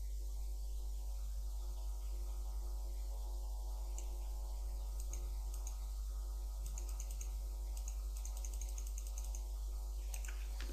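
Steady low electrical hum with a ladder of higher hum tones above it. Over it are faint runs of quick computer keyboard and mouse clicks, first about four seconds in and then repeatedly until near the end.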